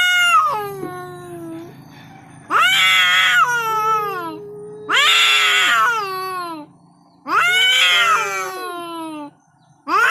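Domestic cats caterwauling in a territorial standoff: a series of long, wavering yowls, about one every two and a half seconds, each rising and then sliding down in pitch.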